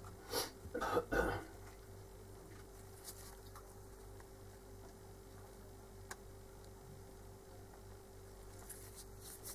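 Quiet room tone with a faint steady hum, broken by a few short rustling noises in the first second or so and a couple of faint ticks later on.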